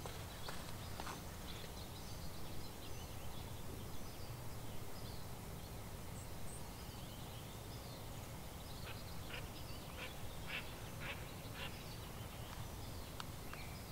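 Quiet outdoor ambience with scattered bird calls over a steady low rumble; a quick run of short calls comes in the second half.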